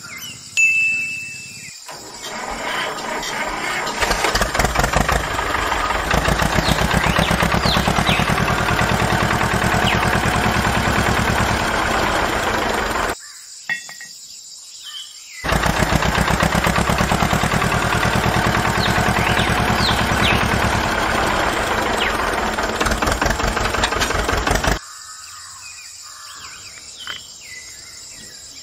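Engine running, typical of a tractor engine. It starts about two seconds in and builds over the next two seconds, cuts out suddenly past the middle, comes straight back after a two-second gap, and stops abruptly about three-quarters of the way through. In the gaps, faint bird chirps sound over a steady outdoor hiss.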